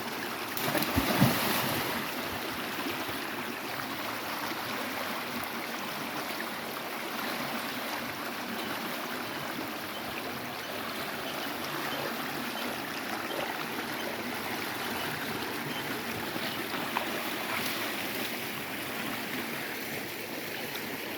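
Steady rush of flowing creek water, with a brief louder swell about a second in.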